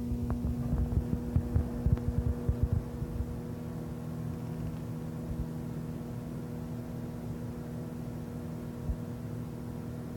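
Microwave oven running with a steady electrical hum, with irregular low knocks during the first few seconds.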